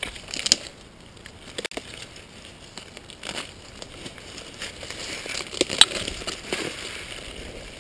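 Twigs and leaves crackling and rustling as someone pushes through dense undergrowth, with irregular sharp snaps, the loudest about half a second in and just before six seconds in.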